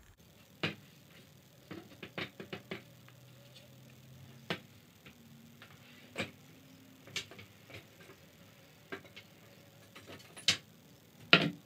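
Irregular light knocks and clicks of wooden chair-back parts being handled at the bench, about fifteen strikes spread out, the loudest two near the end.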